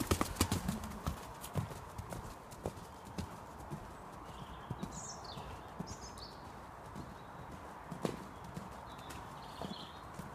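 Hoofbeats of a Connemara pony cantering on the dirt footing of an arena, loud and close for the first second or two, then fainter as the pony moves off to the far side.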